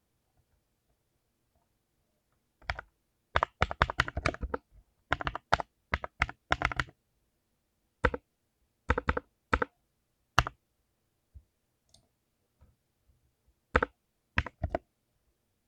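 Mechanical keyboard with clicky blue switches being typed on in short, irregular bursts of sharp key clicks, with a silent pause of a few seconds after about ten seconds.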